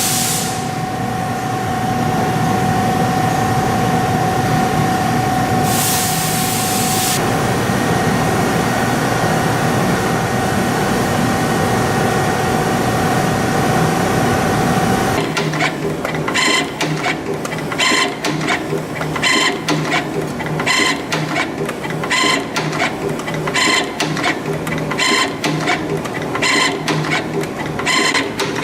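CNC torsion spring machine running. For about half the time it gives a steady hum with a thin whine and a brief hiss. Then it settles into a quick regular cycle of clattering strokes, about one and a half a second, as it coils and forms small wire torsion springs one after another.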